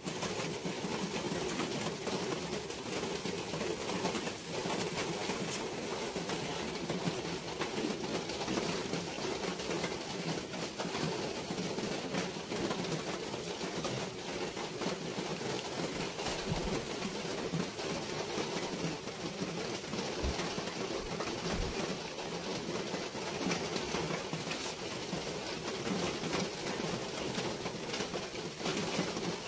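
Outdoor mountain ambience: a steady hiss with birds calling, and a few brief low thumps about two-thirds of the way through.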